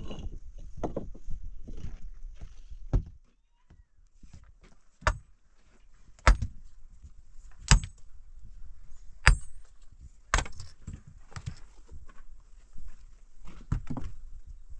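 A hard tool striking again and again: about five sharp blows roughly a second and a half apart, several with a brief metallic ring, after a few seconds of scraping and knocking.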